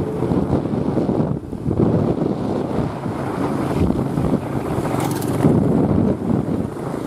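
Wind buffeting the microphone on a moving motorbike, mixed with the rumble of the ride and passing traffic, with a brief lull about a second and a half in.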